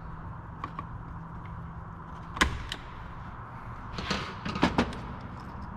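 Sharp plastic-and-metal clicks and knocks from hands working a wire loose from a STIHL MS290 chainsaw's housing: one loud click about two and a half seconds in, then a quick cluster of knocks and rattles near the end, over a steady low hum.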